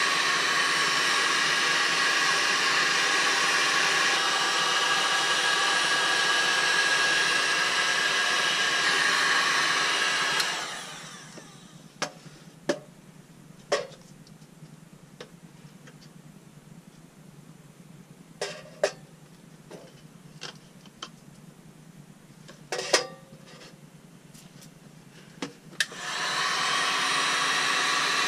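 Steady whirring of a small electric blower motor, like a hair dryer, that winds down about ten seconds in. A few scattered clicks and knocks follow over a quarter of a minute of quiet, and then the motor starts up again near the end.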